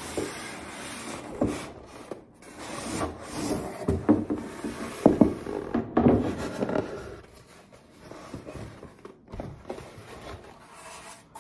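A cardboard shipping box and the white foam box inside it being handled, slid out and set down on a table: irregular rubbing and scraping with a few knocks, loudest in the middle and quieter near the end.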